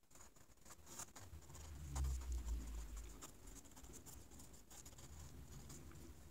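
Pen scratching across a lined legal pad as equations are written out by hand, with many small ticks from the pen strokes. A low rumble rises about two seconds in and fades a second later.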